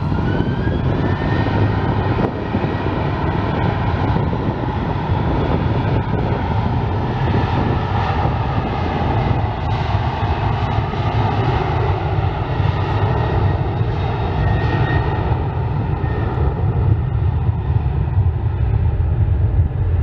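Boeing 737-800's CFM56-7B turbofan engines at takeoff thrust during the takeoff roll: a loud, steady jet roar with deep rumble and a whine that rises in pitch over the first two seconds, then holds.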